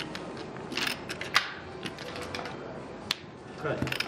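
Casino chips clicking on a blackjack table as a bet is placed for a split hand: a handful of short, sharp clicks over low room noise.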